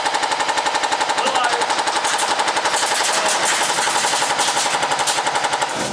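An airsoft gun firing one long full-auto burst, a rapid, even stream of shots that stops near the end.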